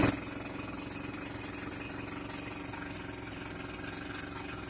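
Jackhammer hammering steadily at a fast, even rate of blows.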